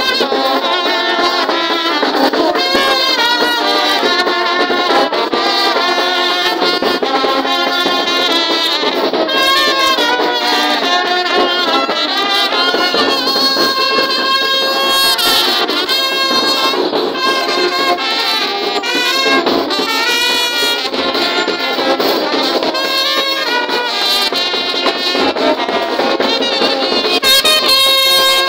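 Marching brass band (fanfare) playing a tune without a break, trumpets and trombones carrying the melody.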